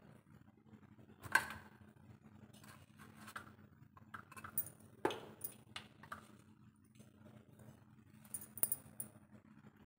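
Scattered light clinks and taps as a hand handles pieces of chocolate barfi on a stainless steel plate, the loudest about a second in, around five seconds in and near the end. A low steady hum runs underneath.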